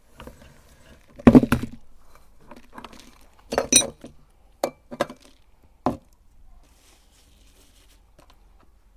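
A handful of sharp knocks and clinks of hard objects against glass, the loudest about a second in and another cluster near four seconds, then a few lighter taps before it goes quiet.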